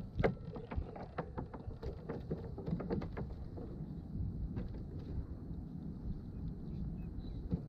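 Low wind rumble on the microphone over open water, with a run of light clicks and knocks in the first three seconds or so and a few more scattered later.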